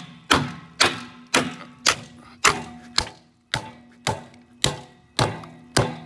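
A hammer repeatedly striking and smashing a Honeywell WV8840B1110 gas control valve on a gas water heater, about two blows a second. Each blow is a sharp impact with a short ring after it.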